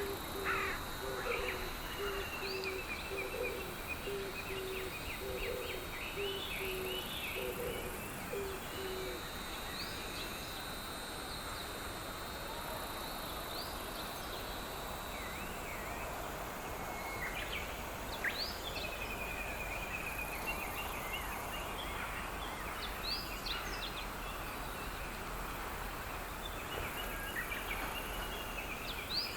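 Outdoor rural ambience with wild birds singing and chirping. For about the first nine seconds one bird gives a low hooting call, repeated about once a second.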